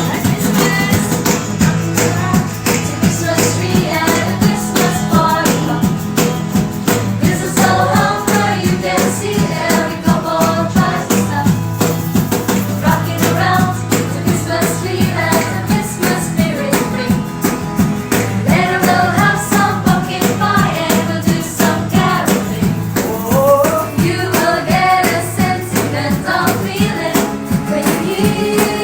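A band playing a song with singing over a steady, regular beat and bass line.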